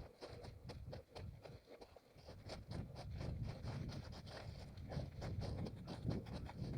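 A runner's footsteps landing in a quick steady rhythm on forest ground, with scraping and rustling of ground litter and undergrowth. A low rumble gets louder about two and a half seconds in.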